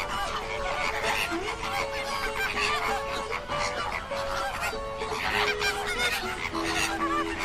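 A flock of flamingos honking and gabbling, many short goose-like calls overlapping, with a simple background melody.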